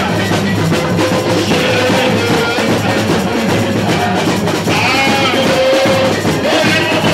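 Live samba-enredo played on drums and percussion, with singing over it.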